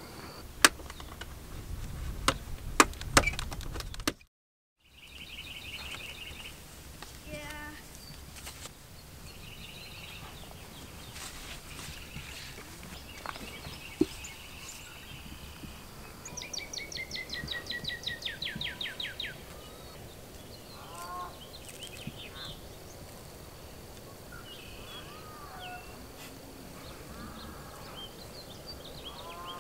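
Outdoor ambience with small birds chirping, and one fast run of quick falling whistled notes near the middle. A few sharp clicks sound in the first few seconds, before a brief dropout.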